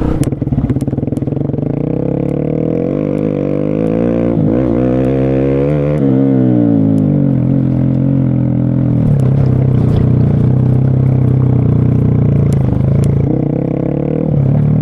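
Scooter engines climbing an off-road track with two riders each, revving with pitch rising and falling, then running at a steadier note after about nine seconds. Their CVT gearboxes, by the rider's reckoning, are running fully hot under the load. Scattered clicks and clatter over the engine sound.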